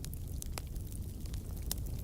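Wood fire in a fireplace crackling: rapid small snaps and a few louder pops over a low steady rumble of burning.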